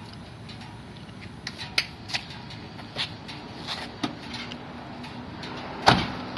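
Scattered light clicks and knocks of things being handled in a van's cab, then the cab door slammed shut about six seconds in, the loudest sound.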